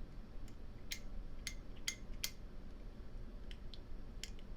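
A handful of light, irregular metallic clicks and taps from handling a vintage 1970 Zippo Slim lighter: its lid and loose, wobbling hinge moving against the brass case.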